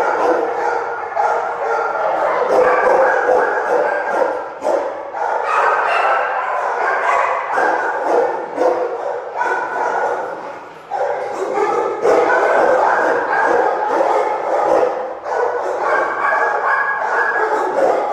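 Many kennelled shelter dogs barking at once, a continuous overlapping din in a hard-walled kennel room, with a brief lull about eleven seconds in. They are excited because staff are taking other dogs out.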